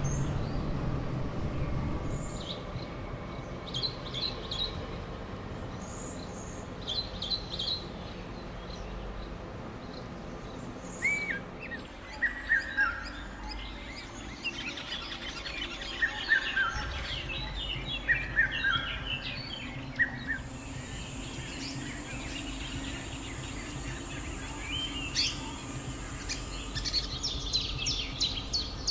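Several birds chirping and calling: short high chirps in the first few seconds, then repeated hooked, falling calls, and a dense run of rapid chirps near the end, over a low background rumble. A steady high hiss runs for several seconds in the latter half.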